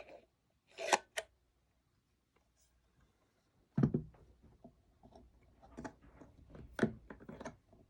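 Small clicks and knocks from a handheld cable tester being handled for a battery check: two sharp clicks about a second in, a louder knock just before the middle, then a run of light taps and clicks.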